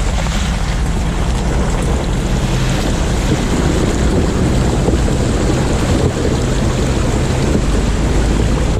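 Steady rumble of road and engine noise from a moving vehicle, heard from inside the cabin.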